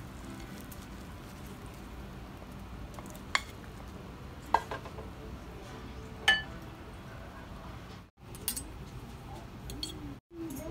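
A ceramic plate and spatula clinking against a nonstick frying pan as cooked food is slid out of the pan onto the plate. A few sharp clinks come a second or two apart over a low steady background, and the sound cuts out briefly twice near the end.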